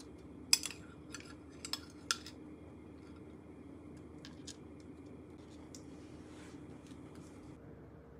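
Metal spoon clinking against a glass food container and dishes while fruit chunks are served: four sharp clinks in the first two seconds or so, then a few fainter taps, over a low steady hum.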